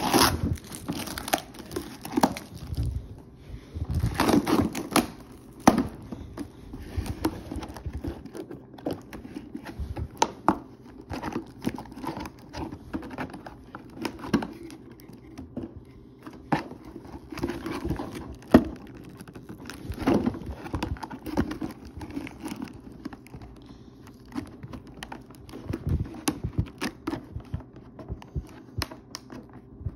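Clear plastic packaging crinkling and a cardboard box and insert being handled and pulled apart during unboxing, with irregular crackles, rustles and small taps throughout.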